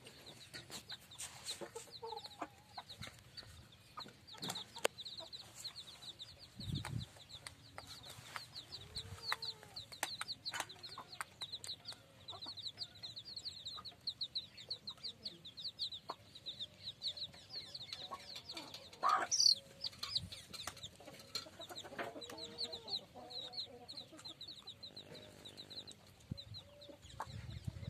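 Kadaknath chicks peeping continuously in quick, high chirps, with a hen's low clucks now and then and scattered sharp clicks. One louder, rising squawk comes a little past two thirds of the way through.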